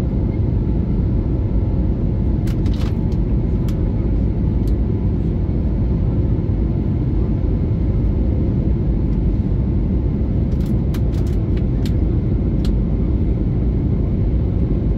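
Steady, loud cabin roar of an Airbus A321neo's engines and airflow during the climb after takeoff, heard from inside the cabin. A few small clicks and rattles come through a few seconds in and again in a cluster about two-thirds of the way through.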